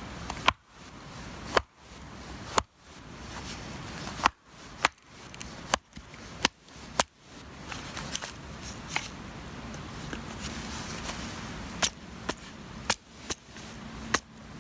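Axe chopping and splitting firewood: a series of sharp, irregular strikes, about eight in the first seven seconds, then a quicker run of about five near the end.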